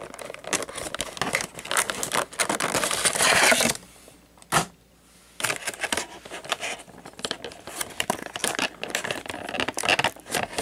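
Clear plastic blister packaging being peeled off its cardboard backing and then crinkled and flexed by hand to free a diecast model, with crackling and scraping. There is a quiet pause broken by a sharp click about four and a half seconds in, then more crinkling and clicking.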